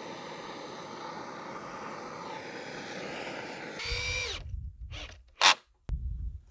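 Gas blowtorch running with a steady roar as it chars oak slabwood, for about four seconds. Then a cordless drill driving screws: its motor whines down, followed by two short, loud spins.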